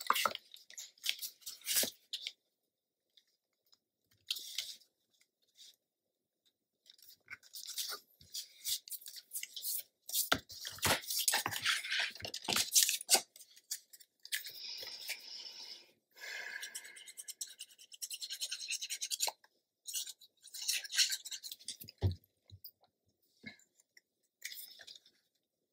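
Paper and cardstock being handled: intermittent rustling and scraping with light clicks as narrow paper border strips are slid and pressed into place on cardstock panels, with a couple of longer hissing stretches in the middle and a single low tap near the end.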